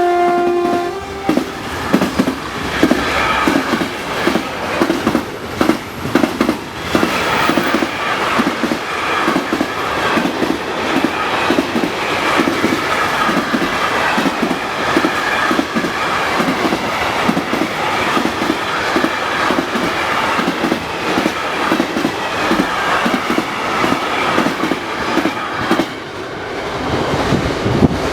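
The last second of a Class 66 diesel locomotive's two-tone air horn. Then a freight train's wagons roll past, their wheels clattering rhythmically over the rail joints, with faint ringing tones above the clatter. The clatter dips briefly near the end and then rises again.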